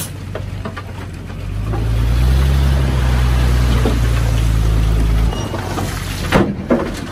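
Heavy diesel engine of earthmoving machinery running, growing louder about two seconds in and holding steady, then easing off a little past five seconds. A few sharp knocks follow near the end.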